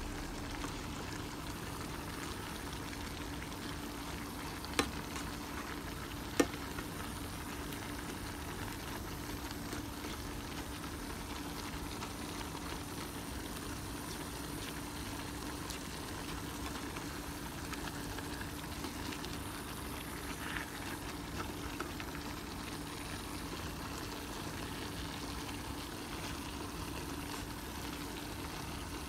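Sliced pork and cabbage sizzling steadily in a frying pan as they are stir-fried, over a faint steady hum. Two sharp knocks come about five and six and a half seconds in.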